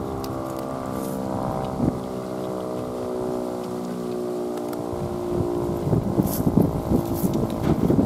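Sentry 10V outdoor warning siren sounding a steady alert tone during its test. Wind buffets the microphone in the second half.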